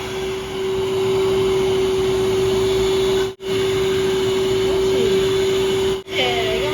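Pet hair dryer running steadily, a continuous blowing noise with a constant hum, cutting out for an instant twice.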